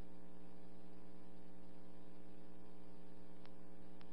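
Steady electrical hum with faint hiss on a dispatch radio recording, its channel idle between transmissions; a couple of faint clicks near the end.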